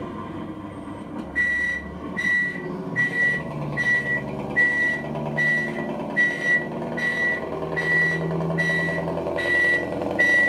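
RC Scania torpedo truck's sound module sounding its electronic reversing beeps, about a dozen evenly spaced short beeps a little under a second apart, starting about a second and a half in, over a simulated diesel engine running as the truck backs up.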